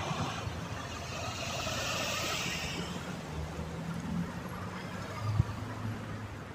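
Street traffic at an intersection: cars and a pickup truck driving past, their tyre noise swelling and fading about two seconds in over a steady engine hum. A single sharp tap sounds near the end.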